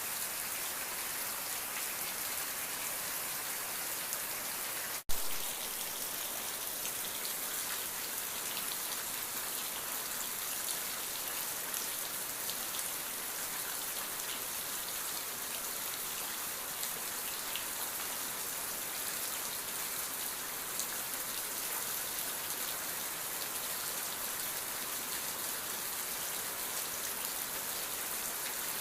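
Steady rain falling, an even hiss of many drops. About five seconds in, a single sharp click breaks it for an instant.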